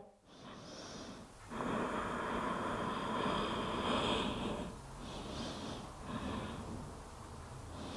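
A woman breathing slowly and audibly: a long out-breath of about three seconds, then two shorter, softer breaths.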